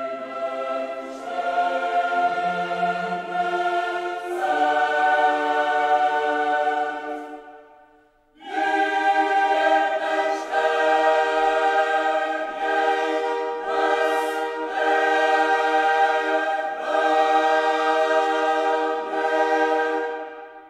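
Background music: a choir singing long held chords, breaking off briefly about eight seconds in and then resuming.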